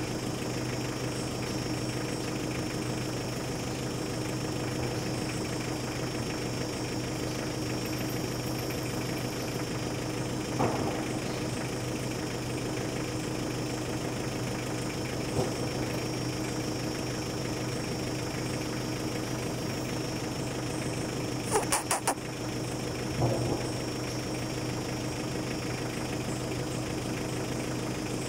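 A motor running steadily with a low, even hum, under a steady high-pitched tone; a quick run of about four sharp clicks comes about three-quarters of the way through.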